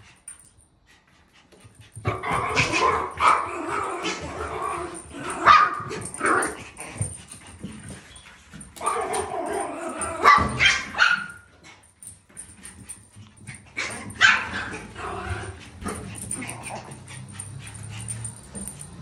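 Small pet dogs barking and yipping in three spells of quick, sharp barks, with short quiet gaps between them.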